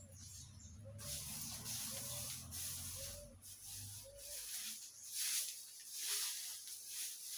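A broom swishing across a dirt yard, sweeping up leaves in repeated strokes roughly once a second.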